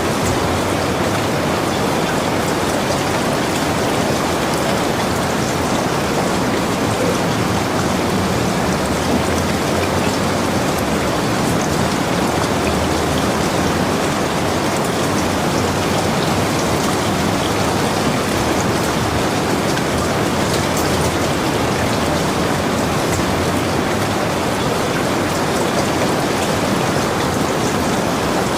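Steady heavy rain falling, a dense even hiss with fine patter of drops.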